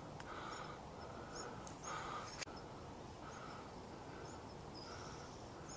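Hummingbird giving short, high-pitched chip calls again and again, with softer repeated lower notes under them and one sharp click about two and a half seconds in.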